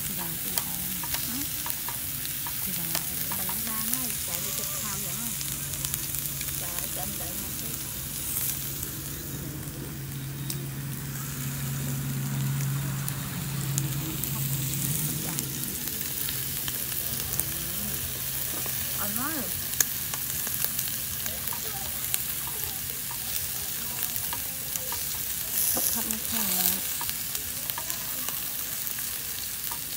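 Food frying and sizzling in a pan, a steady hiss with scattered light clicks.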